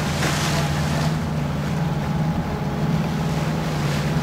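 A fishing vessel's engine running steadily as a low, even hum, under wind and sea noise, with a short rush of wind in the first half second.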